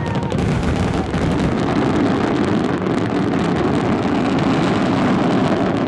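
A fireworks barrage: many shell bursts overlapping into one loud, continuous rumble, with crackling throughout.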